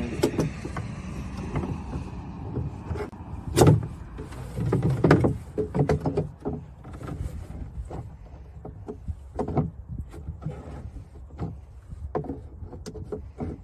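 Channel-lock pliers gripping and turning a threaded plastic bulkhead cap inside a hollow plastic pond skimmer box, snugging it down on its silicone seal: a run of irregular clicks, knocks and creaks, the loudest about three and a half seconds in.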